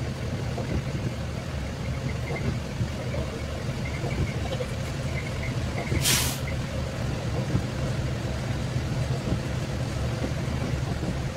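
Truck engine idling with a steady low drone, and about six seconds in a short, sharp hiss of truck air brakes as the yellow truck in front pulls up and stops.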